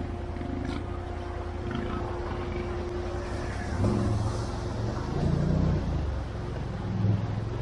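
ATV engine running at low revs with a steady whine over it, the whine stopping a little past halfway. The engine then surges in short bursts of throttle, about halfway through and again near the end.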